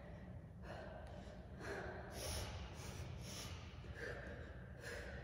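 A woman breathing hard through crunches, with short breaths about once a second.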